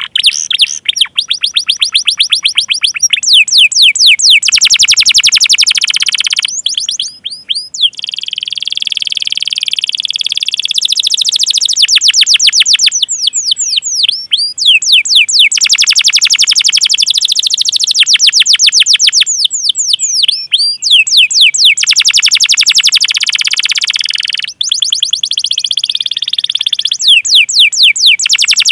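Domestic canary singing a long, nearly unbroken song of fast rolling trills, each a rapid string of high downward-sweeping chirps, changing from one trill to the next with only brief breaks.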